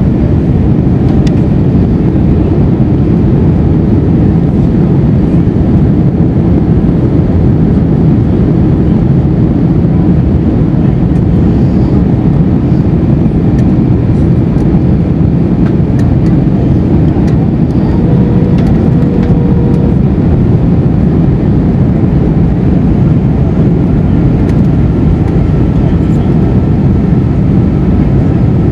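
Steady cabin noise inside an Airbus A321 airliner on descent: a loud, even rumble of engines and airflow, heaviest in the low end.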